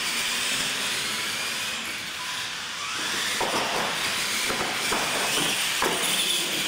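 R/C monster trucks racing on a concrete floor, their drivetrains whining and rising in pitch as they accelerate. From about three and a half seconds in come repeated knocks and clatters as they run over the ramps and obstacles.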